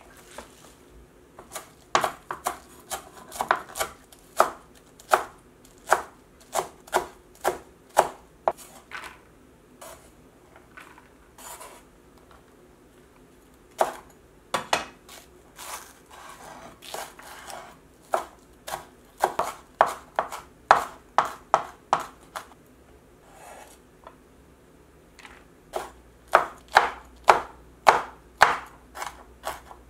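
Kitchen knife chopping vegetables on a wooden cutting board: runs of quick, sharp strokes, about two a second, with short pauses between runs. Green onion is minced first, and Cheongyang green chili peppers are sliced near the end.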